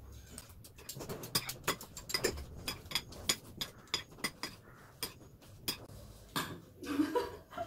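Metal spoons clinking and scraping against ceramic bowls and plates during a meal: many short, irregular clicks. A brief vocal sound near the end.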